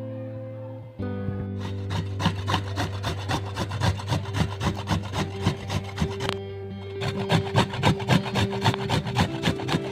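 Fresh ginger being grated on a hand grater: quick repeated rasping strokes that break off briefly just past the middle, over steady background music.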